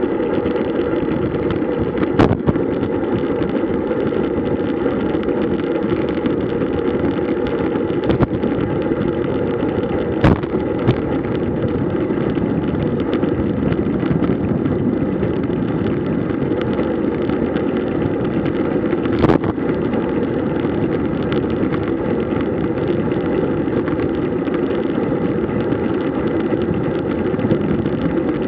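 Steady rushing wind and road noise from a road bike ridden at speed, with a few sharp clicks scattered through it.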